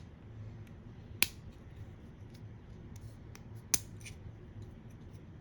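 Small plastic Lego minifigure pieces clicking as they are handled: two sharp clicks about two and a half seconds apart, with fainter ticks between, over a steady low hum.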